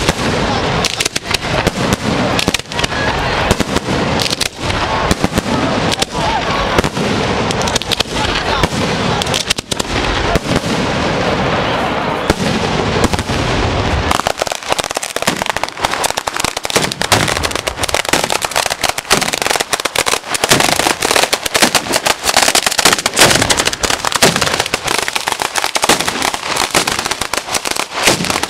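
Batteria alla bolognese fireworks barrage: a dense, unbroken run of shell bursts and firecracker bangs in rapid succession. About halfway through the deep booms thin out and sharper crackling bangs take over.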